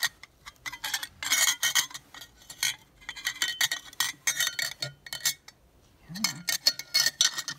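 Steel parts of a Fedorov Avtomat rifle clinking, clicking and scraping against each other as they are handled and fitted by hand, in irregular clusters with a short pause a little past the middle.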